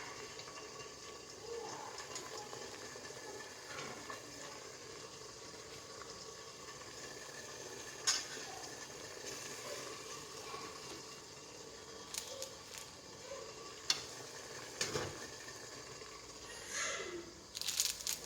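Steady hiss of food cooking on a stove, with a few sharp clinks of utensils.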